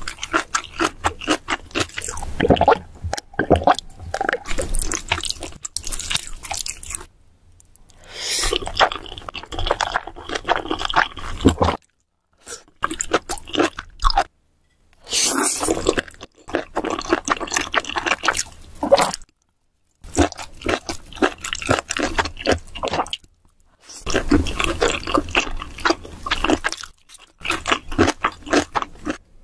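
A person chewing and crunching mouthfuls of spicy noodles and kimchi, with wet, clicky mouth sounds. The sequence comes in several stretches broken by brief silent gaps.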